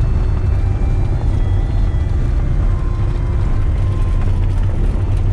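Steady, loud low rumble of a vehicle's engine, heard from inside the vehicle.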